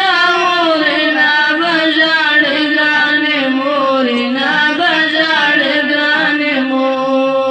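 A boy singing unaccompanied in a long, unbroken melodic line with many ornamental bends in pitch, in the style of a Pashto chanted song.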